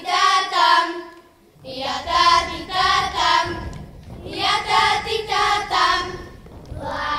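A group of boys singing a folk song together, unaccompanied, in short phrases separated by brief pauses for breath.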